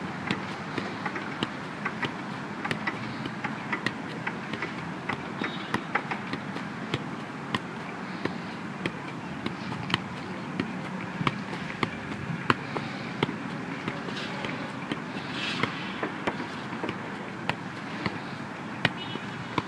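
A leather football being juggled, with irregular short taps as it strikes the boot, thigh and knee. Steady outdoor background noise runs underneath.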